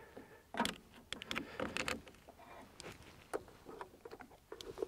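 Jump starter's spring-loaded battery clamps clicking and knocking as they are clipped onto a truck's battery terminals, with the rattle of the cables being handled. Irregular sharp clicks, thickest about half a second in and between one and two seconds in.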